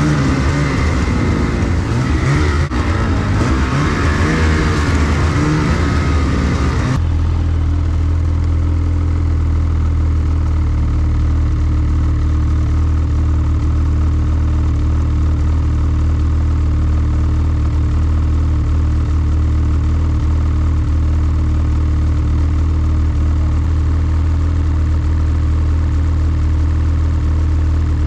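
Snowmobile engine running under way, with track and snow noise. About seven seconds in it changes abruptly to a steady idle.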